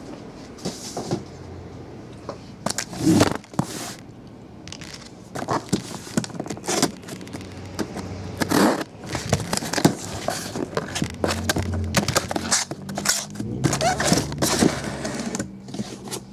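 A cardboard shipping case with its packing tape being slit open with a knife, then handled and its card boxes pulled out: a run of irregular scrapes, crackles of tape and cardboard, and knocks.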